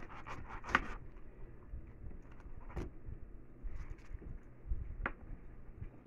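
Small kitchen knife cutting and scraping the tough rind off a pineapple, with a few short sharp knocks, a cluster near the start and single ones about three and five seconds in.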